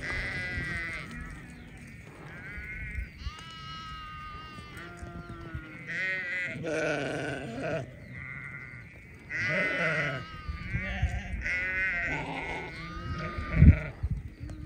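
Sheep bleating close by: a run of many quavering bleats from several animals, some overlapping, with a single dull thump near the end.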